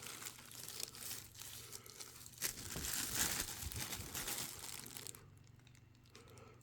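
Packaging crinkling and rustling as it is handled, with a few small clicks, dying away about five seconds in.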